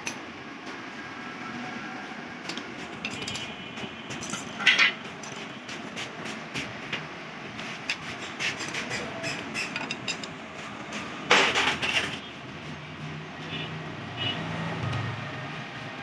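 Metal tools and parts clinking and tapping, with scattered sharp knocks, some with a short ringing tail, and a louder metallic clatter about eleven seconds in.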